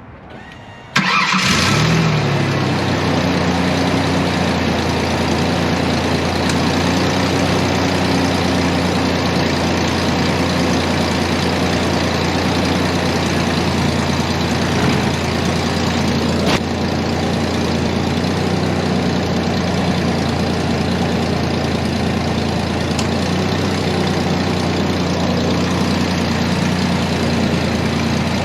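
2003 Ford Ranger's 3.0-litre V6 starting about a second in, its revs flaring briefly and dropping as it catches, then idling steadily. It is being run on fresh oil after an oil change, to check for leaks.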